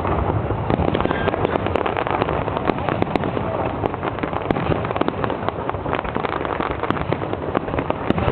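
Fireworks going off in a dense, continuous crackle of many rapid pops and bangs.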